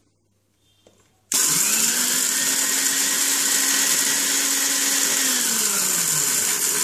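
Maharaja Whiteline mixer grinder switched on about a second in, its motor running steadily at full speed while grinding brittle sun-dried tomato slices in the steel jar, then winding down with a falling pitch near the end.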